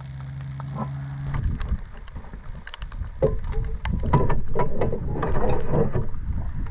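Cooked pasta and its water poured from a dutch oven into an enamel colander: splashing, pouring water with clinks of metal and enamel, loudest from about three seconds in.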